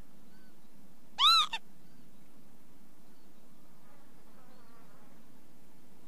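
Northern lapwing giving one loud call about a second in that rises and then falls in pitch, with a short second note right after it. Fainter calls can be heard now and then over a steady low hum.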